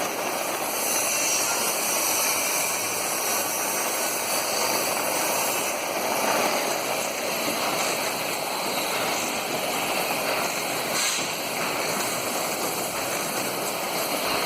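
Rotary screw air compressor running steadily: an even mechanical rush with several steady high-pitched whines over it.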